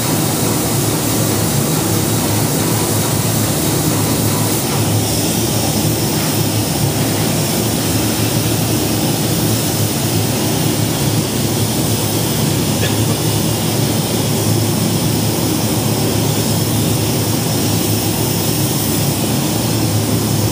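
Polyurea spray equipment in a spray booth running: a Graco Fusion air-purge spray gun fed by a Graco Reactor E-8p proportioner. It makes a loud, steady roar with a hiss of air, and its tone shifts slightly about five seconds in.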